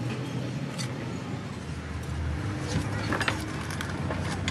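Street ambience: a steady low traffic rumble with a few short clicks and taps from the stall.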